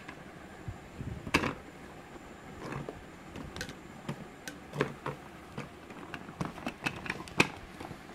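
Hard plastic hand-blender parts (motor body, jar, chopper bowl, whisk attachment) handled and set down: irregular clicks and light knocks. The sharpest knocks come about a second in and near the end. The motor is not running.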